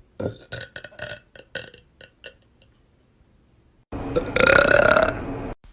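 A person burping: a quick string of short, choppy burps, then after a pause one long, loud burp of about a second and a half whose pitch rises slightly.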